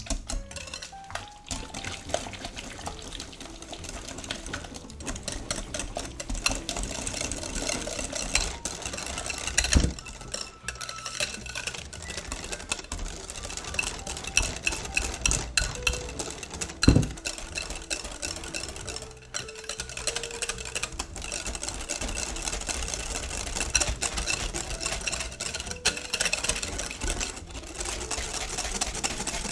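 A utensil stirring and scraping in a mixing bowl, with many small clicks and clinks and two louder knocks, about ten seconds and seventeen seconds in.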